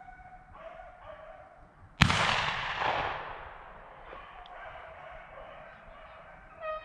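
A shotgun shot about two seconds in, a single loud report that echoes away over a second or so, taking a running rabbit. Beagles bay on the rabbit's trail before and after the shot.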